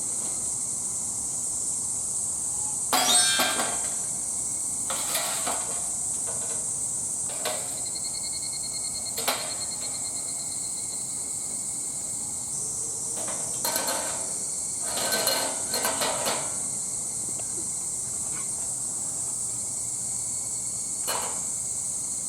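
Metal gear being handled: a scattering of clinks and clanks, some ringing briefly, with a busier cluster about two-thirds of the way in, over a steady high hiss.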